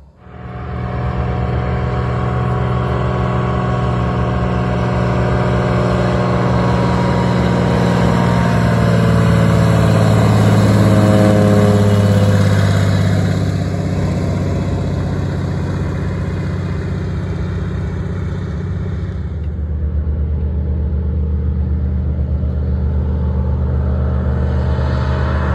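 de Havilland Beaver floatplane's radial engine and propeller at full take-off power, a steady drone that grows louder up to about ten to twelve seconds in as the plane passes, then falls in pitch as it moves away.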